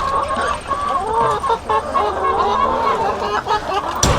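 A flock of chickens clucking, many short calls overlapping without a break, as they gather for scratch. A single sharp knock sounds about four seconds in.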